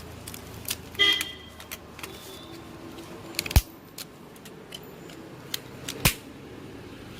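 Knife prying apart the plastic case of a laptop battery pack: scraping and small clicks, with two sharp cracks as the snap-lock clips give way, the loudest about three and a half seconds in and another about six seconds in.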